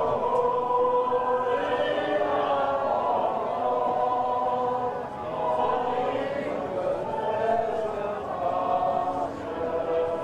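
A national anthem sung by many voices together in slow, held notes, with a short break between phrases about five seconds in.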